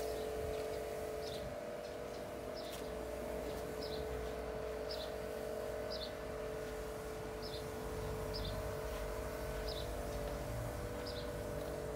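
Outdoor background sound: a steady hum of two held tones, with a short high chirp repeating about once a second.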